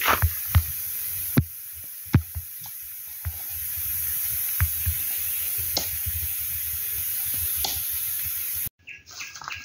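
Outdoor ambience of a steady high-pitched hiss with scattered, irregular knocks and crunches, cut off abruptly near the end.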